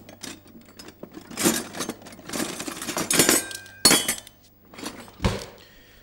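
Kitchen utensils clinking and scraping against dishes as fried potato pancakes are handled and set on kitchen paper to drain. There is a sharp metallic clank with a brief ring about four seconds in, and a dull knock about a second after that.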